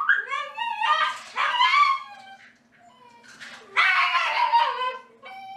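Miniature schnauzers whining and yipping, high cries that bend in pitch, while waiting to be fed. The cries come in two bouts with a short lull between them.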